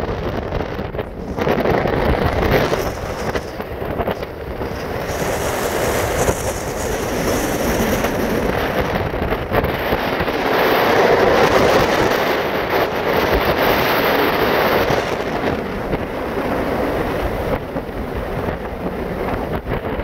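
Strong dust-storm wind buffeting the microphone: a loud, rushing roar with a low rumble that swells and eases in gusts, strongest a little past halfway.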